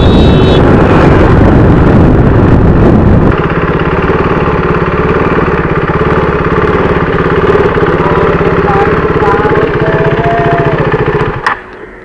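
KTM RC 390's single-cylinder engine running under wind noise while riding, settling about three seconds in to a quieter, steady low-speed run as the bike slows, then cutting off suddenly a second before the end as the engine is switched off.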